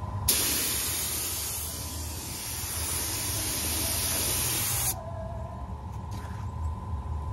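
Gravity-feed air spray gun spraying epoxy primer onto steel wheels: a steady hiss of air and atomised primer that starts abruptly a moment in, runs about four and a half seconds as the trigger is held, and cuts off sharply when it is released. A steady low rumble runs underneath.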